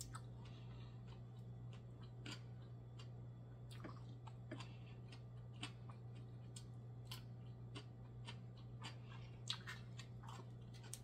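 Close-miked eating sounds: small wet clicks and smacks of chewing at irregular intervals, with a few louder clicks near the end. A steady low hum runs underneath.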